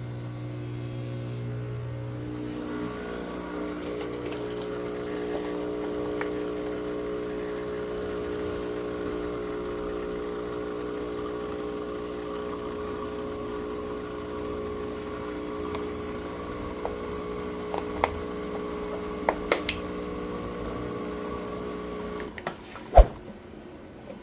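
Breville Dual Boiler espresso machine's pump humming steadily while an espresso shot is pulled, its tone shifting about three seconds in. The pump cuts off near the end, followed by a few light clicks and one sharp knock.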